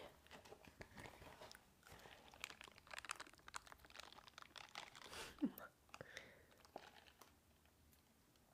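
Soft crackling, scratchy ASMR sounds of a silicone bristle brush handled close to the microphone, with a brief low voice sound about halfway through.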